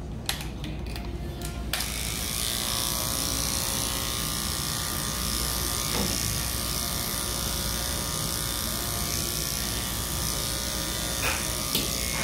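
Electric dog grooming clippers switched on about two seconds in, then running steadily.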